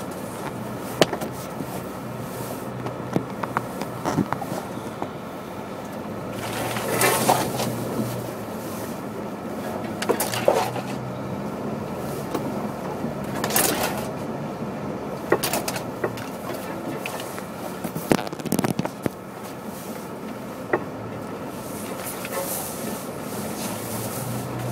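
Jeep engine running at crawling speed on a snowy trail, a steady low hum under frequent small clicks and knocks from the vehicle and the snow. Several louder swishes come and go, about four times.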